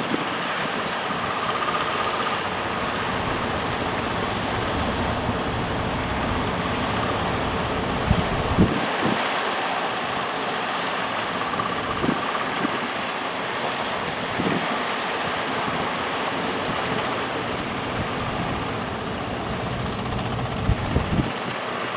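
Strong wind buffeting the microphone over the steady rush of breaking surf, with a few brief gusty thumps.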